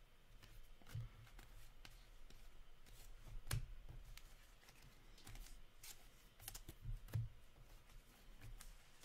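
Trading cards being handled on a table: soft, irregular clicks, taps and rustles as cards are slid, stacked and set down, a few with a light knock.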